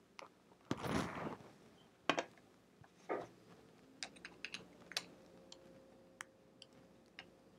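A screwdriver working the centre screw of a 1970s Kenmore sewing machine's belt pulley, with handling of the machine's parts: a short scraping rustle about a second in, a couple of sharper knocks, then a scatter of small light clicks.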